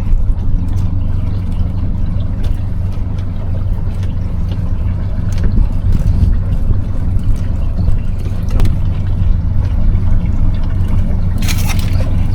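Boat engine running steadily at a low idle, a constant low hum, with a few light knocks and a short noisy burst near the end.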